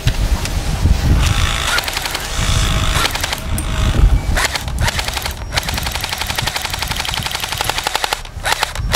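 Airsoft M4/M16 BB rifle firing full-auto in long, rapid continuous strings, with a couple of short breaks. About eight seconds in the firing stops as the magazine runs out of BBs.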